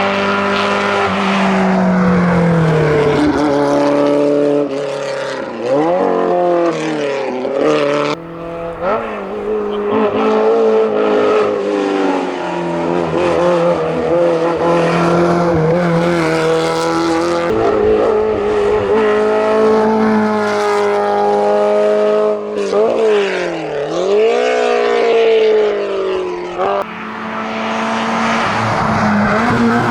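Simca Rallye 2's four-cylinder engine running hard at full throttle on a hillclimb. Its pitch climbs through the gears, drops sharply twice where it brakes and shifts down for corners, then rises again.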